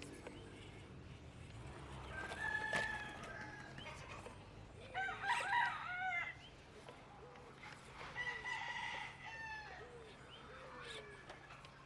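Rooster crowing once, loudest about five seconds in and lasting over a second, with shorter bird calls before and after it.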